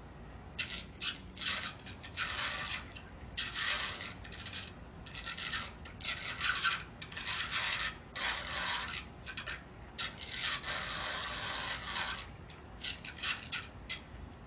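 Irregular scraping and rubbing sounds: short scratchy scrapes and clicks mixed with longer scrapes of one to two seconds, stopping and starting with no steady rhythm.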